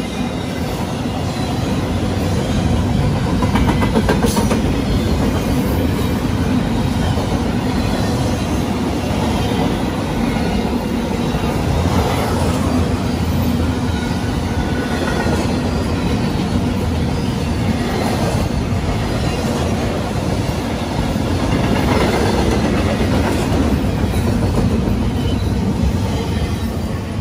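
Freight train of intermodal well cars rolling past on the near track: a steady rumble of steel wheels on the rails, with some clatter from the cars.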